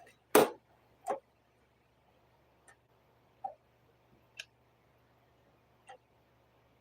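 Hard plastic clicks and taps from a PS5 console's parts being handled and pried during disassembly: two sharper clicks in the first second or so, then a few faint scattered ticks.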